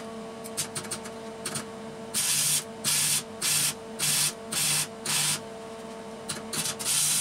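Arc welding on a steel bracket held in a vise, done in short stitches: a few faint crackles, then from about two seconds in a run of six half-second bursts of arc crackle about one every 0.6 s, and one more near the end, over the welder's steady electrical hum.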